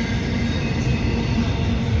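CSX train rolling past, a steady rumble of wheels and railcars on the track.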